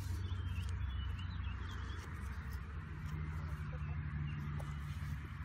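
Outdoor background of birds: scattered short high chirps over a steady low hum.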